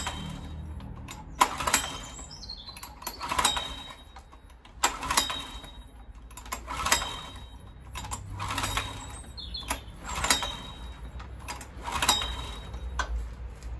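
Recoil starter of a Honda EX1000 portable generator being pulled repeatedly with the choke on. There are about seven rasping pulls, roughly one every one and a half to two seconds.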